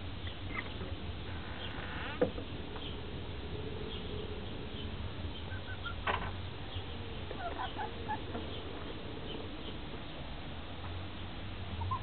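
Hens settled on a roost giving short, soft calls, scattered through the middle and near the end, over a steady low hum. A sharp knock about two seconds in, as the wooden coop door's latch is undone, and a second knock about six seconds in.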